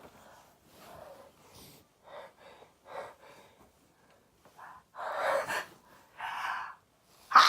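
A person's pre-sneeze build-up: a string of short catching gasps, then two longer, louder inhaled gasps, and the sneeze bursting out right at the end, the loudest sound.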